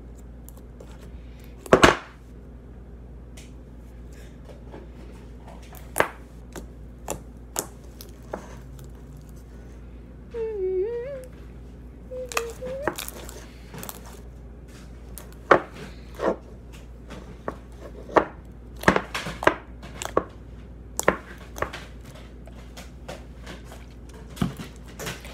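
Homemade slime being kneaded and squished by hand in a bowl: scattered wet clicks and pops, the loudest about two seconds in. A child hums briefly twice, about ten and twelve seconds in.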